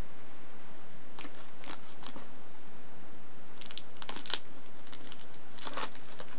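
Paper trash crinkling and tearing as a cat tugs a printed wrapper out of a plastic wastebasket with its teeth. It comes in a few short rustles, loudest about four seconds in.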